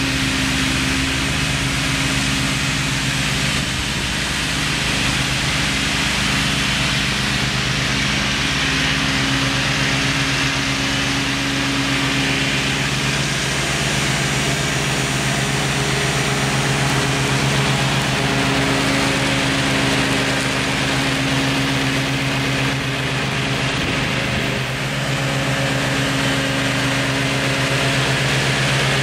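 Zero-turn riding mower running steadily while mowing grass: a steady engine hum over a wide rushing noise.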